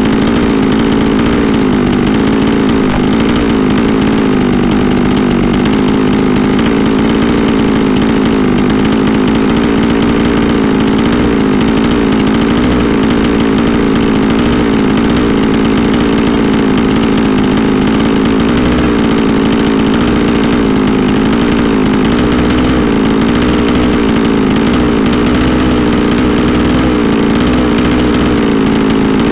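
Holzfforma G660 chainsaw's two-stroke engine, fitted with a modified Bulletproof Performance muffler, running steadily at idle with a slightly wavering pitch and no revving.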